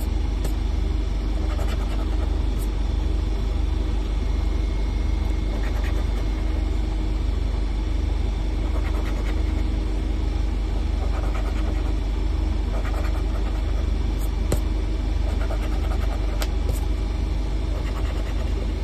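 A coin scratching the latex coating off a lottery scratch-off ticket in short bouts, over a steady low rumble.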